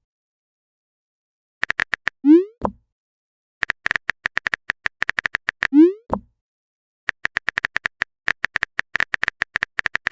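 Message-chat sound effects: runs of quick keyboard-typing clicks, twice ending in a short rising 'bloop' as a message is sent. A third run of typing clicks starts about seven seconds in.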